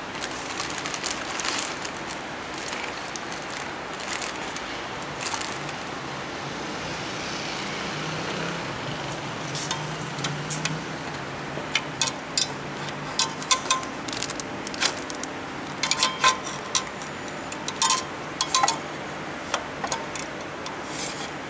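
Clear plastic bag crinkling and a run of sharp clicks and clinks of small metal parts, thickest in the second half, from hands working at a UV printer's printhead carriage over a steady low hum.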